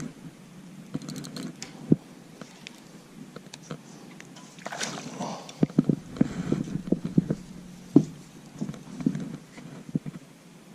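Irregular light knocks and clicks from gear being handled in an aluminium jon boat, with a brief hiss about five seconds in.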